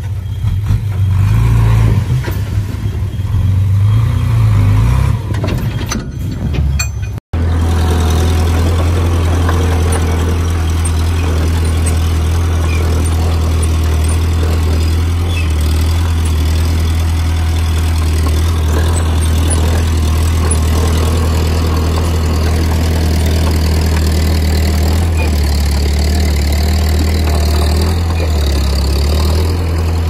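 Diesel engine of heavy earthmoving machinery running, with its pitch and loudness rising and falling for the first several seconds. The sound cuts out briefly about seven seconds in, then settles into a steady low drone.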